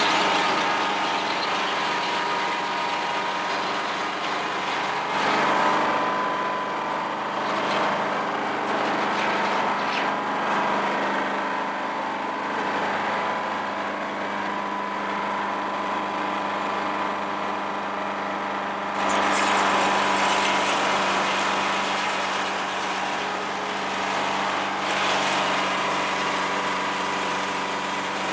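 A big Detroit Diesel engine running steadily, powering a sawmill, with louder, noisier stretches about five seconds in and from about 19 to 25 seconds.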